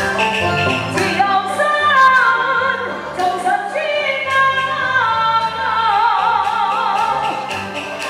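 Taiwanese opera (gezaixi) singing into a microphone over the live band. A sung line enters about a second in, moving in falling phrases and ending on long held notes with wide vibrato.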